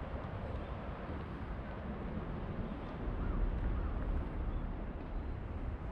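Outdoor city ambience: a steady low rumble of distant traffic mixed with wind on the microphone, growing a little louder about halfway through.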